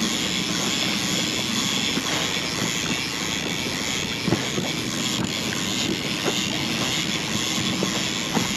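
Boat motor running steadily, a constant drone, with a couple of faint knocks around the middle and near the end.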